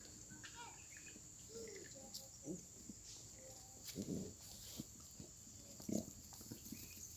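Desi goats feeding on hay at a concrete trough: short bursts of animal sound as they nose and snuffle at the hay, the loudest about four and six seconds in, over a steady high hiss.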